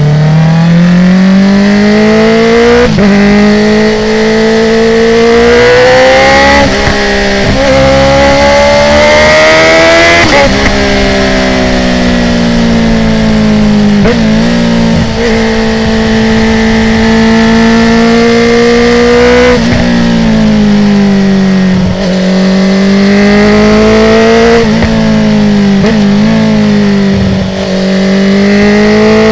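Honda CB650R inline-four engine through an Akrapovic full titanium exhaust with the dB killer removed, revving up and down. The pitch climbs repeatedly and is cut by brief breaks every few seconds as it changes gear with a quickshifter, then eases off and pulls again.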